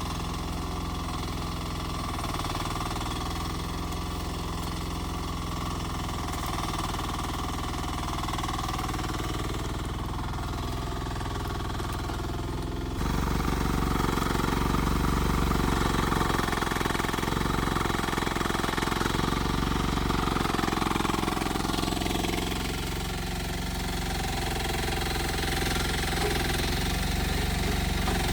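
Rippa R10 mini excavator's engine running steadily. It gets suddenly louder and harsher about halfway through and stays up, as when the machine goes under working load.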